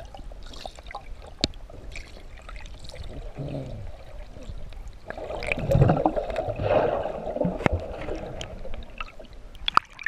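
Water heard underwater: muffled rushing and gurgling with scattered sharp clicks, swelling louder around the middle. Near the end come a few splashes as the microphone breaks the surface.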